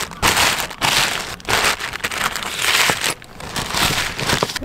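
Thin plastic carrier bag crinkling in irregular bursts as it is handled and spread over a deck hatch, with a few sharp clicks.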